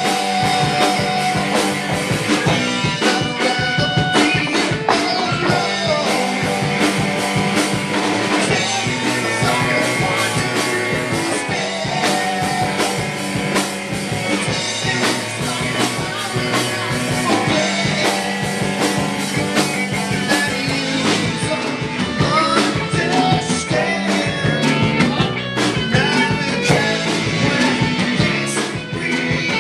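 Live rock band playing at full volume: electric guitars, electric bass and drum kit driving a steady beat.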